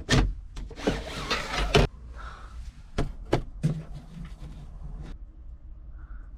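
A series of sharp knocks and rubbing noises, like fittings being handled, stopping about five seconds in.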